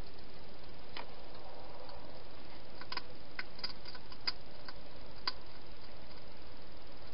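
Wild hedgehog feeding at the bowls inside a plastic feeding box: a scattering of sharp little clicks and ticks, bunched a little before the middle, with the loudest just past it, over a steady hiss.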